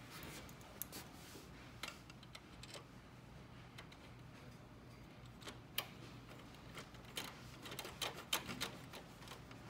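Sparse, irregular light clicks and taps of a hand screwdriver and screws against the copier's metal frame as the toner dispenser assembly is screwed back in, over a low steady hum.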